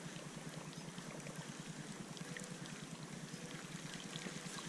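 Faint, steady water trickling and lapping around a small boat's hull, over a steady low hum.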